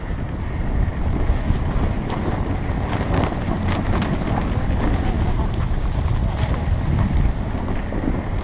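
Storm wind buffeting the microphone: a loud, steady rumble with scattered crackles, starting abruptly as the shot cuts in.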